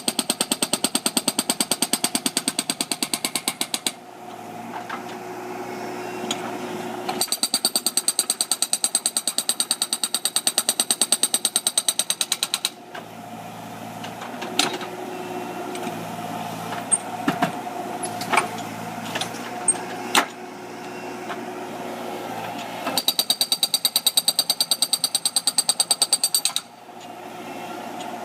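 Hydraulic breaker on a Terex PT-30 skid steer hammering reinforced concrete in three long runs of rapid, evenly spaced blows. Between the runs the machine's engine runs on, with a few sharp cracks and knocks.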